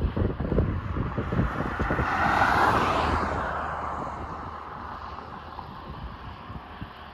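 Passenger train hauled by an EP1 electric locomotive going past, its wheels clattering rhythmically over the rail joints. A rushing swell rises about two seconds in and fades away, leaving a fainter clatter.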